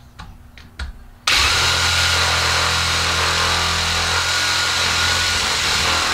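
A few light clicks, then about a second in a Ryobi compact reciprocating saw starts abruptly and runs steadily with a high whine, its blade cutting through a thin tree branch.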